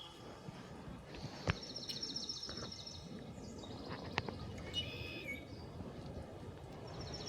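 Small songbirds singing: a fast, high trill repeated a few times, with other chirps near the middle, over a steady low outdoor background noise. A single sharp click sounds about a second and a half in.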